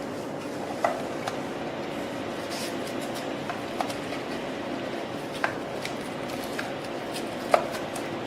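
Light, scattered clicks and taps as lipolaser pads are handled and strapped down with a lace, over a steady hum. The sharpest click comes near the end.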